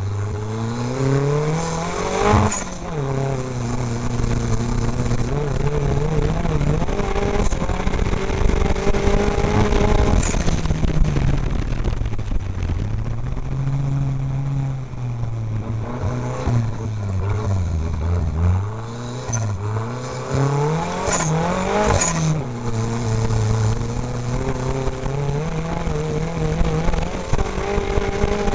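Off-road race car engine heard from inside the cockpit, revving up and down as it is driven hard around a dirt track. The pitch rises and falls over and over, dropping sharply a few times where the throttle is lifted for corners.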